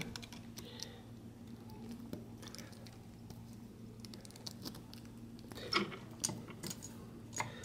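Faint small clicks and scratching of fingers forcing coil springs into the brush holders of a car starter motor's brush plate, with a few sharper clicks near the end, over a low steady hum.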